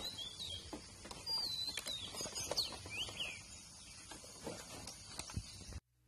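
Birds chirping with short whistled calls, over occasional clicks and knocks from a bag being strapped onto a scooter. The sound cuts off suddenly near the end.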